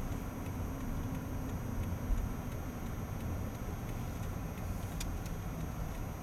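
Car driving on a snowy road, heard from inside the cabin: a steady low rumble of engine and tyres, with a faint click or two about five seconds in.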